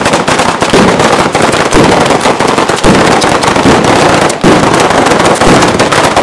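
Italian ground firework battery (batteria) of firecrackers strung along wires, going off in a long, dense, unbroken chain of rapid cracks and bangs.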